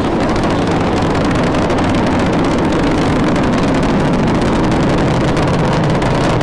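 Space shuttle launch: the rocket engines' loud, steady roar and rumble as the vehicle climbs.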